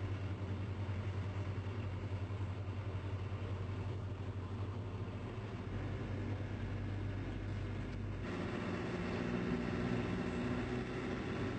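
Vehicle engines running with a steady low drone, heard from a car moving among a column of tanks and armoured vehicles. The engine sound changes abruptly about eight seconds in.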